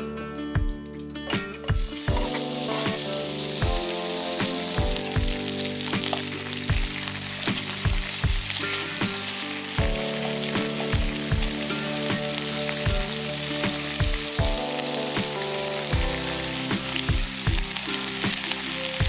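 Food sizzling as it fries in sesame oil in a frying pan. The sizzle starts about two seconds in and stays steady, over background music with a regular beat.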